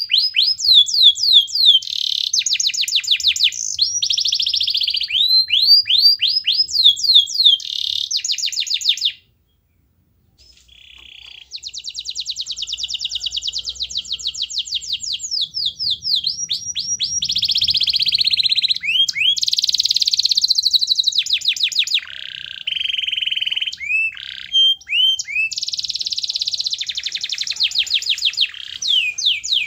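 Domestic canary singing a long song of rapid trills and repeated sweeping notes. It breaks off for about a second roughly nine seconds in, then resumes.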